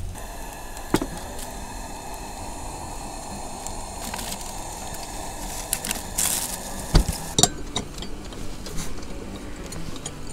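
Occasional sharp clinks and knocks of dishes and utensils being handled, over a steady low hiss.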